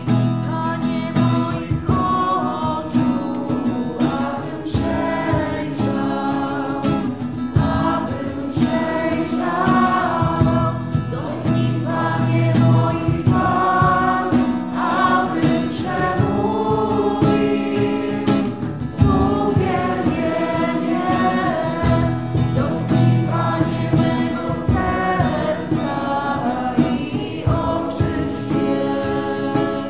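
Group of voices singing a slow Christian worship song, accompanied by strummed acoustic guitar.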